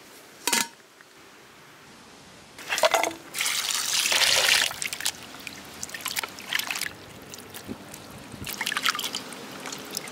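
Raw mutton pieces being washed by hand in a steel bowl of water: a loud splashing rush for about two seconds, then lighter splashes and drips as the meat is rubbed and squeezed out. A short metallic clink about half a second in.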